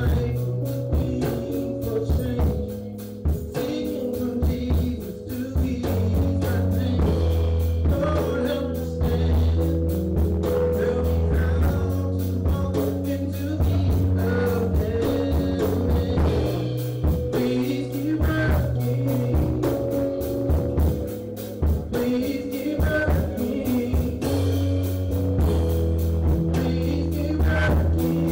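A man singing to his own electronic keyboard: held chords over a steady bass line and a regular beat.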